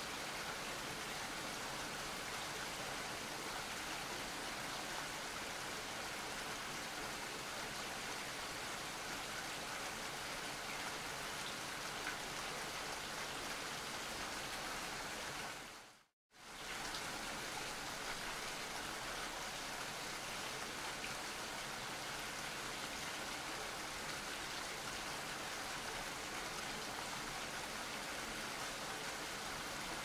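Steady rainfall. About halfway through it fades out to silence for a moment, then fades back in.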